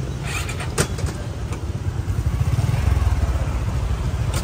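Street traffic: motorbike and car engines running close by, with a few sharp clicks within the first second.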